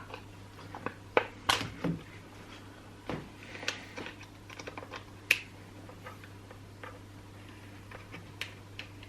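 Scattered clicks and light knocks of small chainsaw parts being handled and fitted, the sharpest about five seconds in, over a steady low hum.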